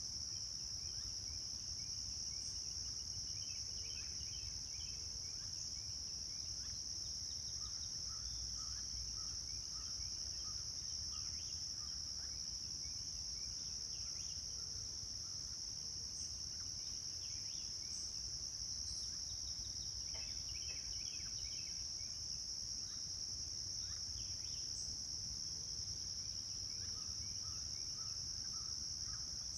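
Steady, high-pitched insect chorus, with faint short chirps in quick runs now and then.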